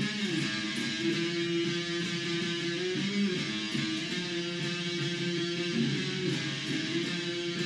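Electric guitar played through a small amplifier: strummed chords that ring on at a steady level, with no singing.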